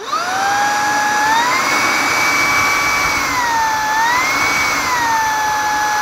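Shark IZ202UKT cordless vacuum switched on, its motor whining with a rush of airflow. The whine steps up in pitch twice, once about a second and a half in and again around four seconds in, then drops back each time as the max-power boost trigger is pulled and released.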